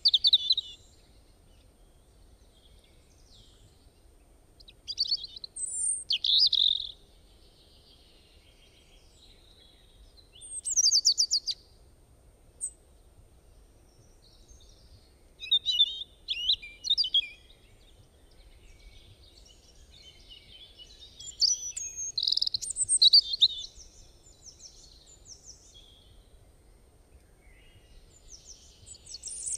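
Birds singing: short bursts of high chirps and trills every few seconds, with quiet gaps between them.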